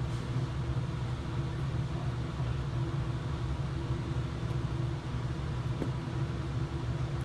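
Steady low mechanical hum, like a fan or ventilation running, with a faint small click a little before the end.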